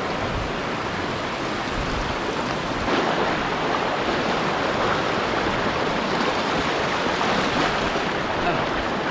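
Steady rush of a flooded, fast-flowing river running over rocks close by, a little louder from about three seconds in. The river is in spate, higher than the speaker has ever seen it.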